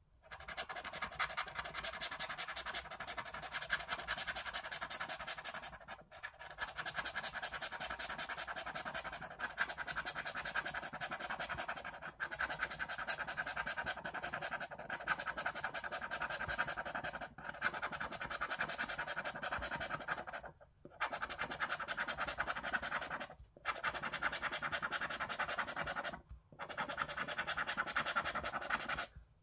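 The silver scratch-off coating of a Mega Multiplier lottery scratch card being rubbed off with a hand-held scraper in fast back-and-forth strokes. It makes a steady dry rasp, broken by brief pauses every few seconds.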